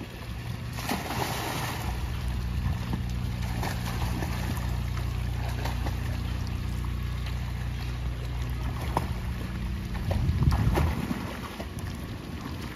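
A child goes into a swimming pool with a splash about a second in, then swims with small, irregular splashes from her arms and legs, over a steady low rumble.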